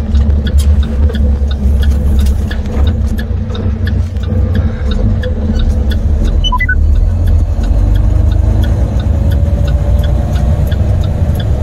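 International semi-truck's MaxxForce diesel engine pulling at low speed, heard inside the cab as a strong steady low drone, with light regular ticking. A faint tone rises from about eight seconds in, and a brief run of high chirps sounds about six and a half seconds in.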